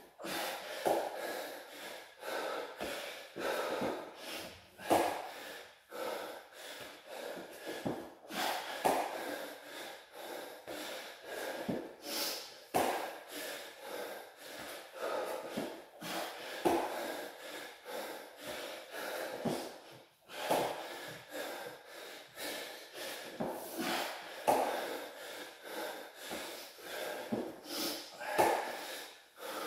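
A man breathing hard in short, repeated breaths, winded from doing burpees and squats, with soft thumps and rubs of hands and feet on a floor mat.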